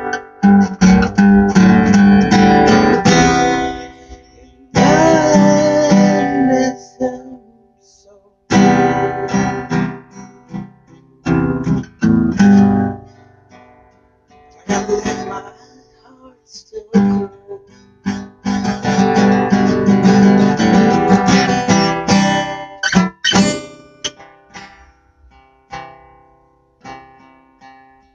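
Acoustic guitar strummed in an instrumental passage between sung verses. The chords ring out in phrases with brief pauses, and the playing grows softer near the end.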